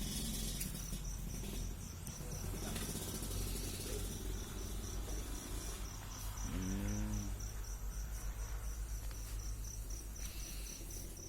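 Crickets chirping, a steady high pulsed trill at about four pulses a second, over a low rumble. A short voice-like hum comes about seven seconds in.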